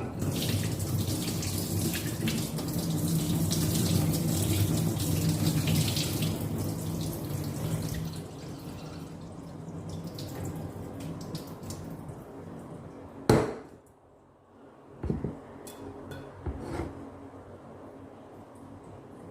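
Kitchen tap running into a pot of rice in the sink, filling it to rinse off the starch, steady for about eight seconds before easing off. Quieter water sounds follow, with one sharp knock about halfway through and a few softer knocks later.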